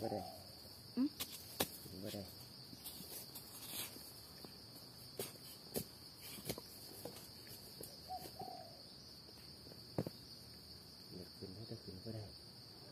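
Steady high-pitched drone of crickets or other insects, with sharp clicks and scrapes from a small hand digging tool worked into dry forest soil a few times.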